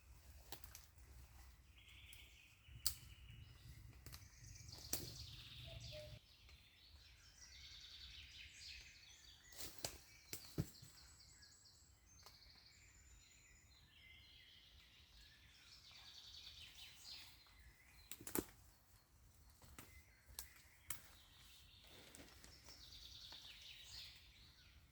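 Faint songbirds singing and trilling in the forest, with a few sharp clicks or snaps scattered through.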